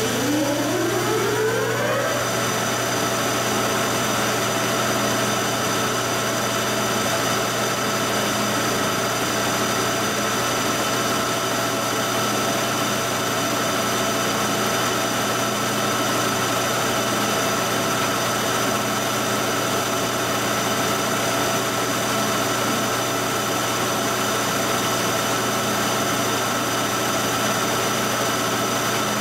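Series 90 Monarch 40 hp engine lathe starting up: the spindle and geared headstock spin up with a whine that rises in pitch over about two seconds, then run at a steady speed. The phase converter hums steadily underneath.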